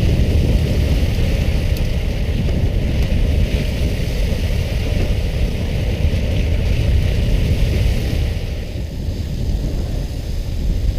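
Fishing boat's engine running under steady wind rumble on the microphone, with a hiss of water spray from the deck sprinklers that drops away about eight seconds in.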